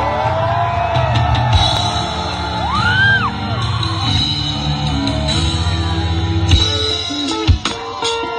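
Rock band playing live in a large hall: guitars and bass holding sustained notes, with gliding pitches rising and falling above them and a few sharp drum hits near the end.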